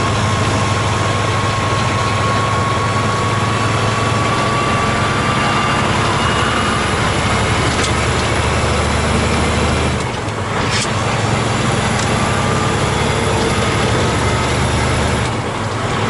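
Semi-truck's diesel engine and road noise heard inside the cab while driving on the highway: a steady drone with a faint whine that slowly rises in pitch. The drone dips briefly twice, about ten seconds in and again near the end.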